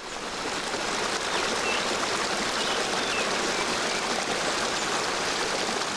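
Small waterfall on a forest mountain stream, water splashing and rushing in a steady hiss that fades in over the first second.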